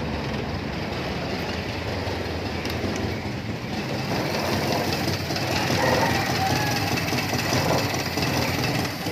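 Toyota Tamaraw FX gasoline engine running after a no-start fault, a steady rhythmic chugging that grows somewhat louder about five seconds in.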